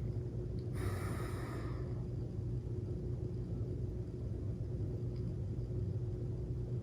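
Steady low background hum with a faint constant tone, and a brief soft rustle about a second in.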